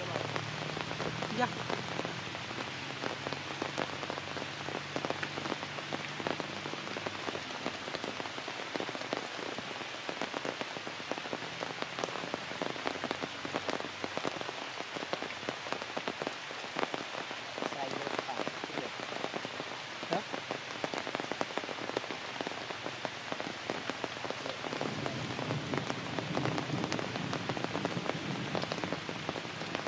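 Steady rain falling on leaves and branches, a continuous hiss studded with many individual drop hits, growing slightly louder near the end.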